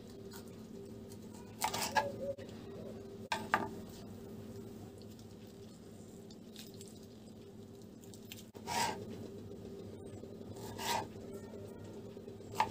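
A kitchen knife cutting tomatoes on a plastic cutting board: a few short scraping cuts, spaced unevenly, over a steady low hum.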